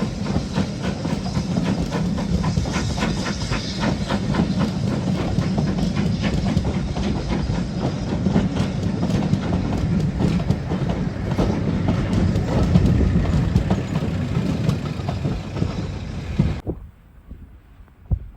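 Train running on the rails, its wheels clicking over the rail joints, cutting off abruptly near the end.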